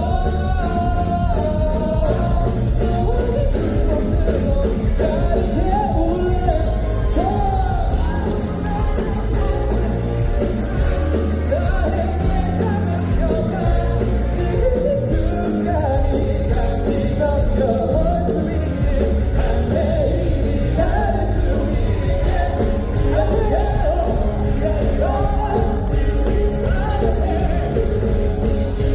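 Live pop-rock band performance: a sung lead vocal over a full band with drums and bass, loud and steady throughout.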